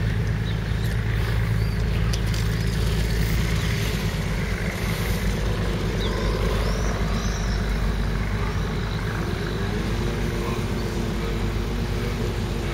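Steady low rumble of city road traffic, with one vehicle's engine rising in pitch about nine seconds in and a few faint high chirps around the middle.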